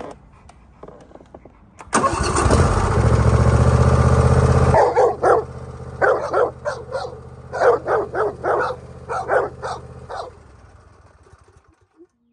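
Old John Deere riding lawnmower engine cranking and catching about two seconds in, running loudly, then settling lower and stopping around ten seconds in. A dog barks repeatedly at the running mower in its second half.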